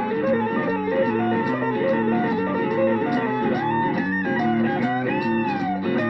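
Squier Stratocaster electric guitar played in a bluesy lead style, picked notes over sustained chords, with string bends about four and five seconds in.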